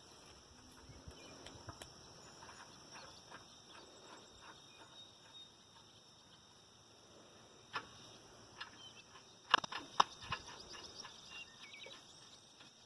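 Quiet outdoor background with faint birdsong. It is broken by a few sharp knocks, the two loudest about half a second apart some three-quarters of the way in.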